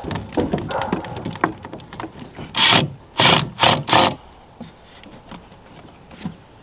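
Rubbing and rattling as a rubber fuel hose and its clamps are handled, then four short bursts of a cordless drill driving a hose clamp's screw tight, and quieter fiddling near the end.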